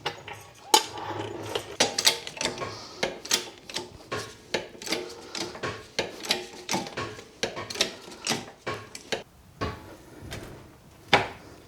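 Car jack being worked to raise the car: a run of irregular metallic clicks and clanks, a few each second.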